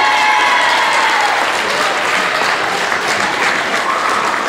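Crowd applauding steadily in a gymnasium after a player's name is announced.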